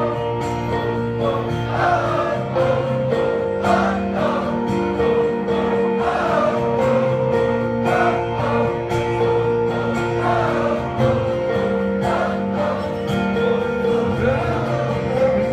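Acoustic guitar playing steady chords, with a wordless vocal melody over it.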